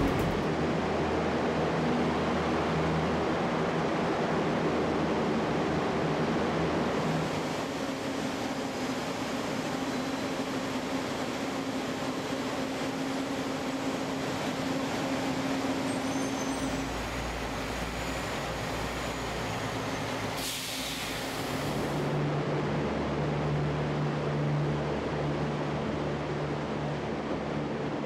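Landing Craft Air Cushion hovercraft running their gas turbines and lift fans inside a ship's well deck: a steady wide drone with a low hum under it. A brief higher hiss comes about two-thirds of the way through.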